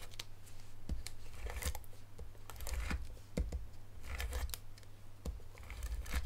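Cardstock being handled on a tabletop: a tape-runner adhesive dispenser laying tape on the back of an embossed card panel, then the panel pressed and smoothed down by hand, giving scattered short clicks and paper rustles.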